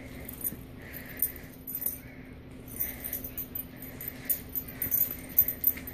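A small dog tussling with a plush slipper on carpet: scattered scuffles and ticks, light jingling, and repeated short soft puffs of breath.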